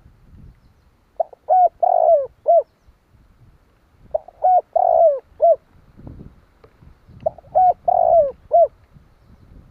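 Spotted dove cooing: three phrases about three seconds apart, each of four notes (two short coos, a longer drawn-out one, then a short one).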